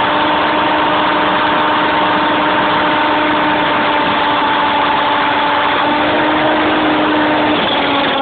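Align T-Rex 500 RC helicopter's motor and rotor running at a steady speed, a loud steady whine picked up close by a phone riding on the helicopter. The pitch dips slightly near the end.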